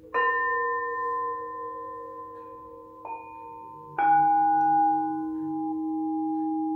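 Meditation background music of struck bell-like tones, in the manner of singing bowls, ringing on with long sustains over a steady drone. New strikes come right at the start, softly about three seconds in, and loudest about four seconds in.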